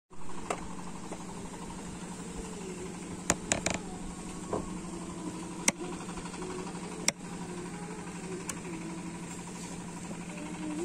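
A boat engine running steadily with a low, even hum, and several sharp clicks over it.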